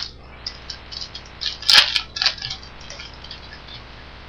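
Trading cards and a foil pack wrapper being handled: scattered crinkling rustles and small clicks, with a louder crinkle about two seconds in.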